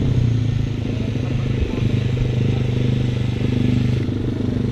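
Pitbike's Daytona 190cc single-cylinder four-stroke engine idling steadily.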